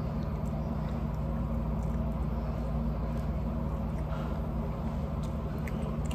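Steady low machine hum, with a few faint clicks of chewing.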